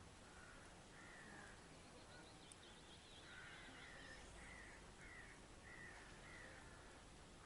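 A faint bird calling in a run of short, slightly falling calls about twice a second, with some higher chirping just before, over quiet outdoor background noise.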